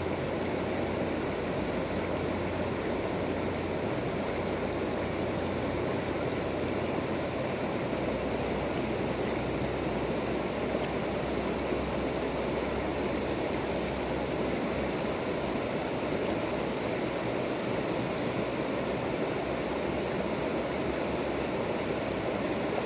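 Shallow river flowing over a stony bed: a steady, even rushing of water.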